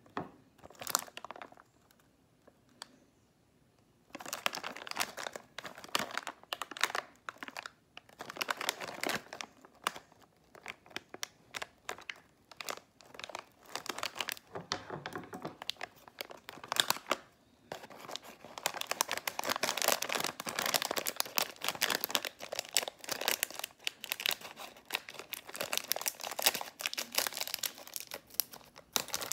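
Plastic snack-biscuit packet crinkling in the hands, in stretches with short pauses, and being cut open with scissors near the end.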